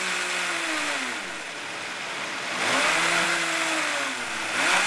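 Vitamix blender motor running while it blends a smoothie. Its pitch falls about a second in and stays low, climbs back up partway through, then dips briefly near the end and rises again.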